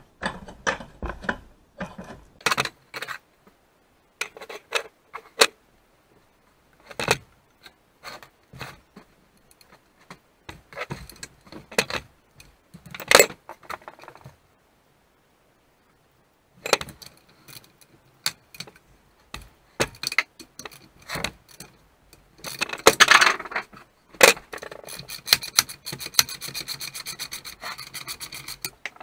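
Hand tools clinking, scraping and knocking on the metal housing, bolts and guards of a 1958 McCulloch Mac 35A chainsaw as it is unbolted and taken apart. Separate clinks and scrapes come in bursts, with a short pause midway. Near the end there is a rapid run of clicks.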